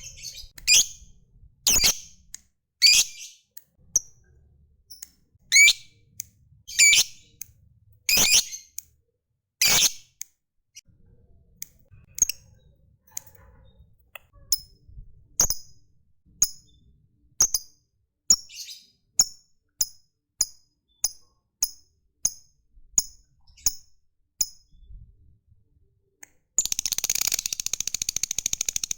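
Lovebird calling: loud, sharp shrill calls about once a second, then softer short chirps in an even series, breaking near the end into a rapid continuous chattering trill, the 'ngekek' that lovebird keepers prize.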